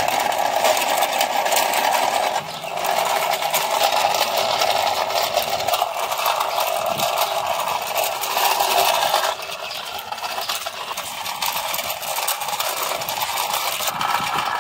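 Plastic packaging crinkling and rustling continuously as a toy auto rickshaw is unwrapped, with many small crackles, easing off briefly twice.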